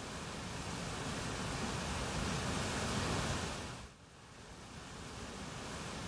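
Steady rushing of falling water from a waterfall. It swells, dips sharply about four seconds in, then builds back up.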